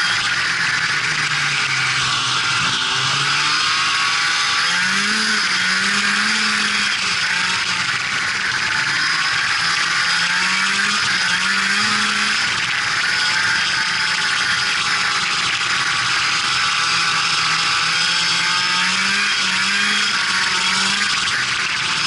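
Indy Sport 340 snowmobile's two-stroke engine running under way on a trail, its pitch rising and falling several times with the throttle, over a steady hiss of wind and track noise.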